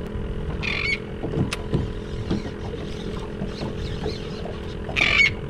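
Boat outboard motor running with a steady low hum over water sloshing at the hull, cut by two short high-pitched buzzes, about a second in and again near the end.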